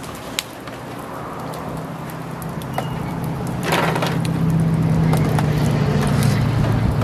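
A low engine hum that grows steadily louder, with a brief clatter of a wire skimmer set against a foil pan about four seconds in.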